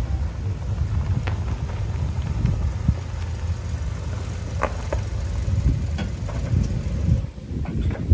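Hyundai i20 on the move, heard with the microphone in or on the car: a steady low rumble of road and engine noise buffeted by wind, with a few faint clicks scattered through it.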